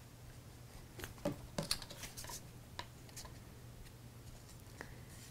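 Faint handling noise of glued cardstock: a few light taps and rustles as paper tabs are pressed together by hand and a plastic glue bottle is put down on the table, over a faint steady low hum.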